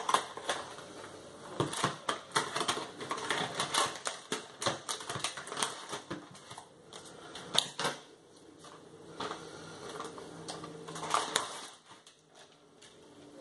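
Plastic packaging of a supermarket meat tray being cut open with a knife and its film peeled and handled: a dense run of crinkles, crackles and clicks, thinning out near the end.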